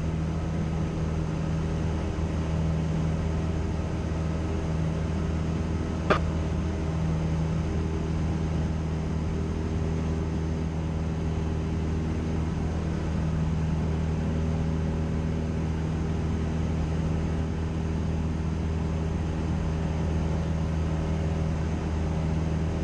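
Cessna 172's piston engine and propeller droning steadily in cruise, heard inside the cabin. A single short click about six seconds in.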